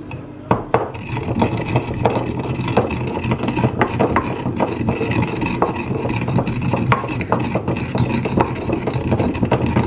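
Black peppercorns being crushed and ground in a mortar with a pestle: a steady grinding scrape, starting about half a second in, with frequent sharp clicks and knocks as the peppercorns crack.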